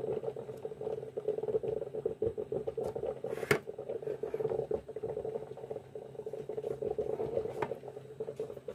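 A steady, rapidly fluttering background noise, with one sharp knock about three and a half seconds in as a tin can is set down on the kitchen counter.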